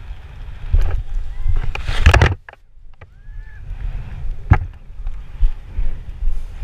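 Wind buffeting a GoPro's microphone during a parachute landing, a gusty rumble with loud surges that drops off abruptly a little past two seconds. A single sharp knock comes about four and a half seconds in.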